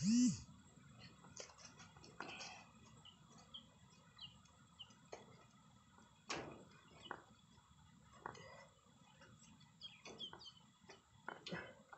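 Thin bamboo stakes clicking and rustling as they are pushed one by one into the soil along the base of a wire-mesh coop, with a few sharp knocks. Small birds chirp faintly throughout, and a deep cooing call sounds right at the start.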